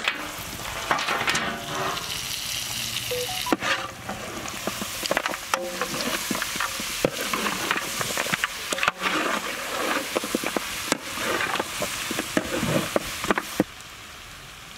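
Pre-boiled mutton nalli (marrow bone) pieces being stirred and fried in sizzling masala in a large metal pot, with a metal spatula scraping and knocking against the pot. The stirring stops near the end, leaving a fainter steady hiss.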